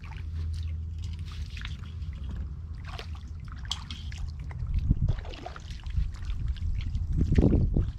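Footsteps splashing and squelching through shallow water and soft mangrove mud as people wade along, over a steady low rumble. The splashes get louder about five seconds in and again near the end.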